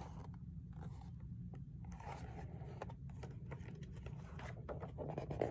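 Pages of a hardcover picture book being turned and handled: faint paper rustles and scrapes, a little more of them near the end, over a steady low background hum.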